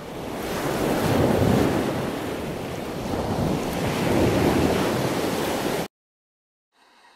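Rushing ocean-water ambience that swells and ebbs twice like surging swell, then cuts off suddenly about six seconds in.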